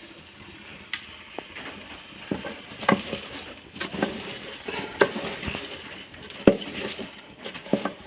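Spoon stirring rice in a cooking pot, scraping and knocking against the pot at irregular moments over a low sizzle of frying.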